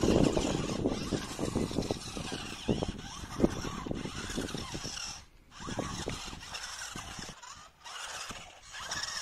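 Toy-grade 1/16-scale rock crawler RC car's electric motors and gearboxes whining in uneven surges while its tyres scrabble through loose dirt on a climb. The drive cuts out briefly a little past five seconds and again near eight seconds.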